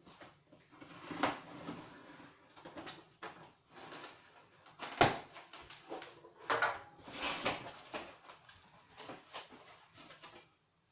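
A cardboard box being opened: a knife slitting packing tape, then cardboard flaps scraping and rustling as they are pulled open. A sharp knock about five seconds in is the loudest sound.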